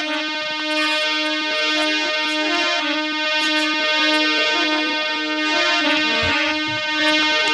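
Instrumental interlude of a Rajasthani devotional bhajan: a harmonium plays a repeating melody, with a dholak drum and small hand cymbals keeping time.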